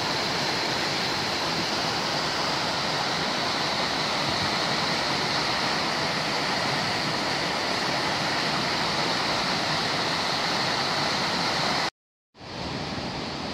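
River water tumbling over a weir, a steady rush of white water. Near the end the sound cuts out for a moment and comes back a little quieter as fast-flowing river water.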